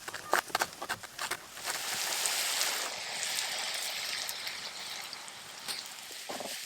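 Rushing water of a stream or falls, a steady hiss. A few sharp clicks sound in the first second and a half.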